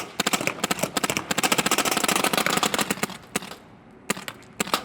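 Speedball paintball gun firing a rapid, continuous burst of shots at a PC case for about three seconds, then stopping, followed by a few single shots near the end.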